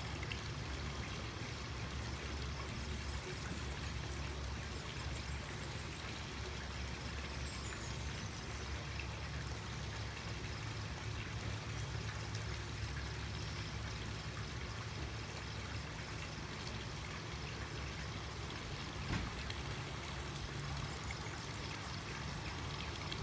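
A swimming pool's statue spout pouring water into the pool, a steady splashing and trickling with a low rumble underneath. A single brief knock sounds near the end.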